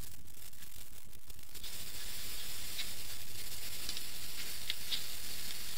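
Steady background hiss of the recording with a faint low hum; a few faint ticks about three and five seconds in.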